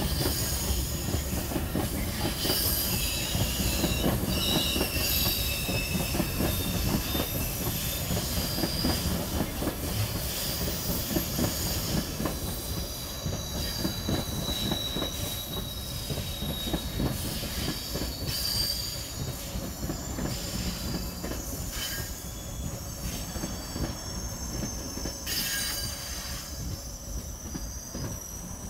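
Passenger train coaches rolling slowly past the platform, steel wheels squealing in thin high tones over a steady clatter on the rails. The squeal and clatter ease slightly in the second half.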